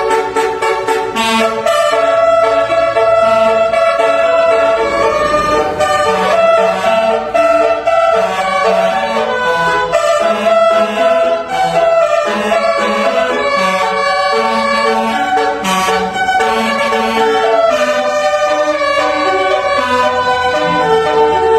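Basuri musical horn, the loud horn-speaker system fitted to Indonesian buses and trucks, playing a song melody in a run of held, shifting notes.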